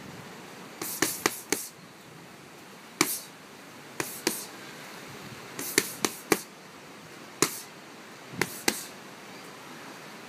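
Boxing gloves punching curved focus pads held by a trainer: sharp slapping hits in quick combinations of two to four, with short pauses between them.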